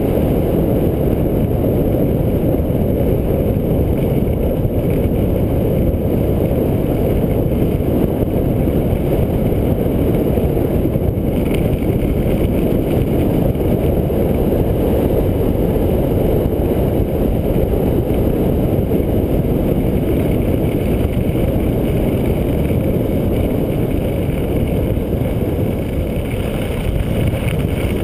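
Steady wind rumble buffeting an action camera's microphone while skiing downhill at speed on a sit-ski, easing a little near the end as the skier slows.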